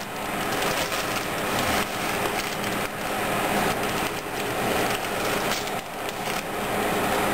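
Dry spaghetti being pushed into a stainless steel pot of boiling water, the stiff strands giving scattered clicks and crackles against each other and the pot, over the steady hiss of the boiling water.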